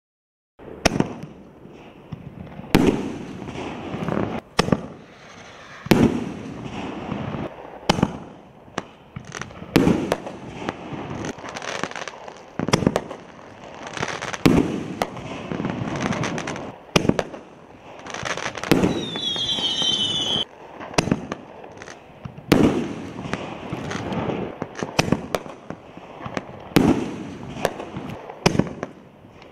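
60-gram canister fireworks shells fired one after another from a mortar tube: repeated launch thumps and loud bangs as the shells break overhead. A sharp report comes every second or two, with a heavier blast about every four seconds, and a brief high whistle near the middle.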